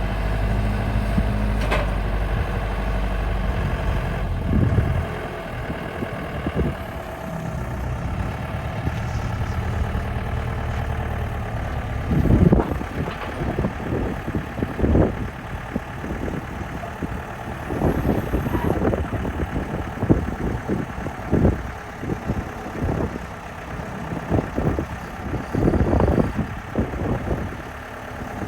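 Forklift engine running while it lifts a zero-turn mower off a trailer. From about halfway through come many sharp knocks and clanks of metal.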